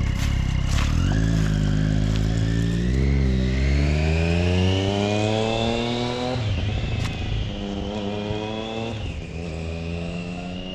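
2007 Triumph Daytona 675's inline-three engine running after its rebuild. Its revs climb slowly for a few seconds, fall back sharply about six and a half seconds in, then climb gently again.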